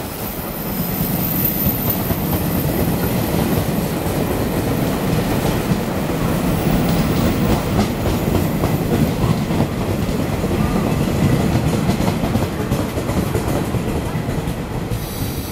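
Chu-Kuang Express passenger coaches passing a station platform: a steady, loud rumble of wheels running on the rails. It builds in the first second, holds, and eases off a little near the end.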